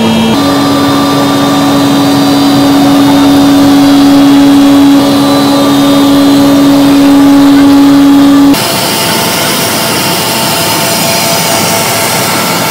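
Instant noodle production line machinery running: a loud, steady mechanical hum with hiss, which shifts abruptly a few times, the hum tone dropping out about two-thirds through and leaving a hissier whir.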